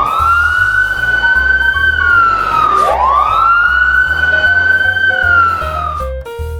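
Fire truck siren wailing through two slow cycles, each a quick rise, a long high hold and a slow fall, with light children's background music under it. The siren stops near the end.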